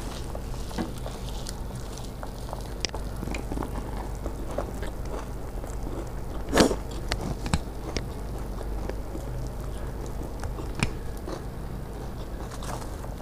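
Puffed rice (muri) mixed with ghugni being chewed, while fingers stir the mixture on a steel plate, giving many small scattered crunches and clicks. One louder crunch comes about halfway through.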